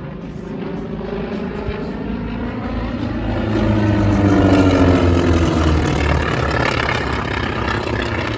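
Two North American T-28 Trojans in formation flying past with their radial engines and propellers running, the engine note growing louder to a peak about halfway through and dropping in pitch as they go by.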